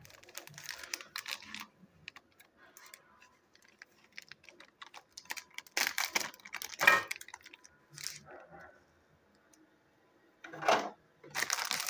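Handling noise from plastic-bagged Plarail toy train cars: irregular small clicks, knocks and plastic bag rustling, with a denser burst of crinkling plastic near the end.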